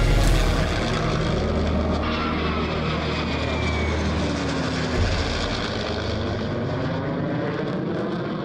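A fixed-wing aircraft flying past, its engine noise loud and steady, with faint pitches sliding slowly downward.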